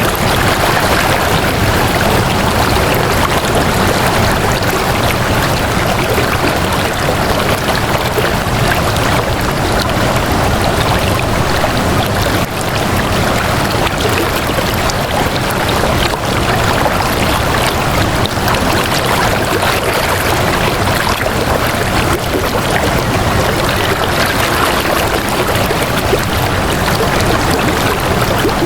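Flowing water, a steady continuous rush with no breaks.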